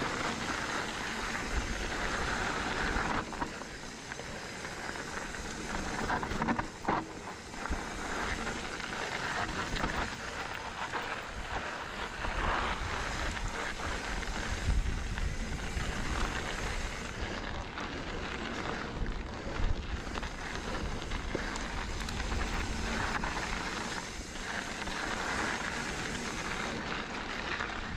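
Wind buffeting the camera microphone over the rolling noise of mountain-bike tyres on rocky dirt singletrack. A few sharp knocks and rattles come from the bike as it runs over rough ground.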